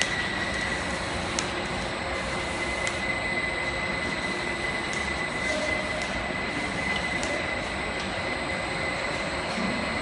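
Automatic top and cylindrical labeling machine running: conveyor and rotary table moving plastic tubs, a steady mechanical hum with a steady high whine and a few light clicks.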